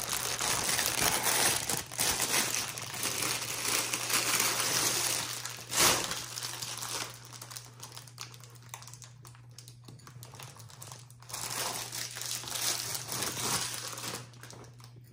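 Clear plastic bag crinkling and rustling as a motorcycle rear shock absorber wrapped in it is handled and lifted out of its foam-lined box. The crinkling is dense for the first five seconds with a sharp louder rustle about six seconds in, then quieter and patchier, picking up again near the end, over a steady low hum.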